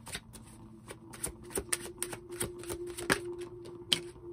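A tarot deck being shuffled by hand: a quick, irregular run of card snaps and clicks. A louder slap near the end comes as a card flies out of the deck onto the table.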